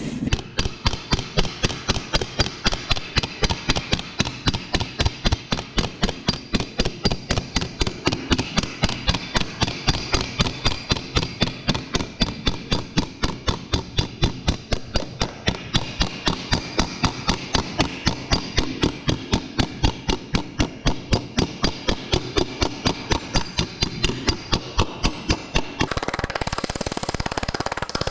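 Hand hammer tapping along the edge of a polished sheet-metal shell in a steady run of sharp metallic strikes, about three a second, punching a row of small dimples. The tapping stops about two seconds before the end, giving way to a steady rushing noise.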